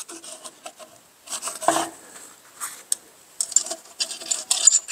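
Metal scraping and light clicking of a thin magnetic pickup rod being worked around inside an open engine block's crankcase, coming in several short bouts.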